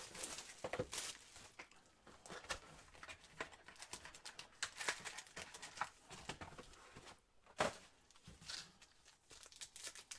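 Trading-card packaging being handled: scattered crinkles, rustles and light taps as packs and boxes are opened and moved.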